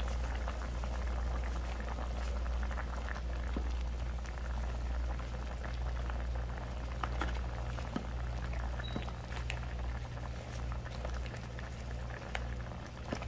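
A pot of vegetable and pork broth boiling, with bubbling and many small pops over a steady low hum. A few light clicks come in here and there.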